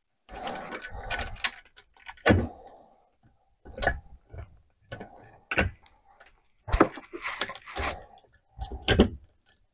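Irregular metallic clatter and sharp knocks as a chainsaw's guide bar and chain are handled and shifted on a workbench. The loudest knock comes a couple of seconds in, and more follow through to the end.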